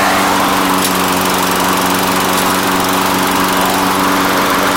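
Small walk-behind lawn mower engine running steadily at speed, with an even, unchanging note.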